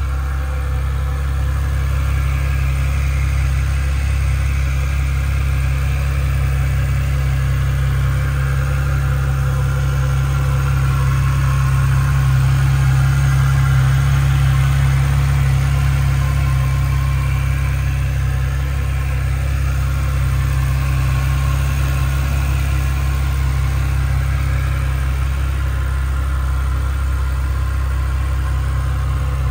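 Aston Martin DB7 Vantage's 5.9-litre V12 idling steadily with a deep, even hum, a little louder about halfway through.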